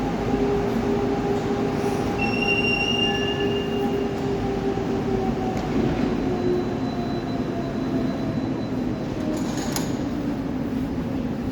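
Baltiets metro train running, heard from inside the car: steady running noise with a traction-drive whine that falls in pitch from about halfway through as the train slows. There are short high wheel squeals a couple of seconds in.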